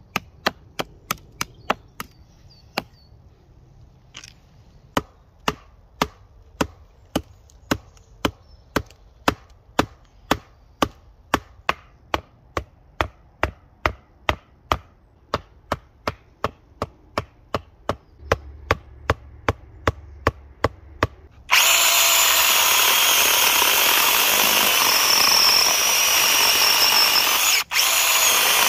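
A blade chopping into a rotten log, sharp strikes about two a second. About three quarters of the way through, a SeeSii cordless electric chainsaw starts and runs cutting into a log, scoring it for a long log fire, with a brief break near the end.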